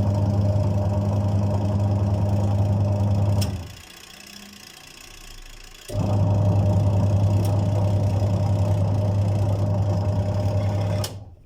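Washing machine's wash motor turning the pulsator through a newly replaced gearbox: a steady electric-motor hum that runs for about three and a half seconds, stops for about two, then starts again and runs for about five seconds before cutting off near the end, the stop-and-restart pattern of a wash cycle reversing direction.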